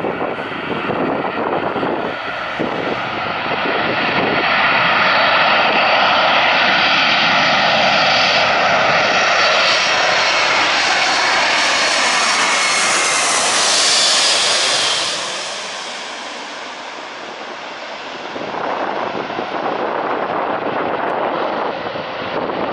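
Boeing C-17 Globemaster III's four F117 turbofan engines on landing approach, passing overhead. The jet noise builds over the first few seconds, peaks with a high whine falling in pitch as the aircraft goes over, drops away suddenly, then swells again as a rumble from behind as it nears touchdown.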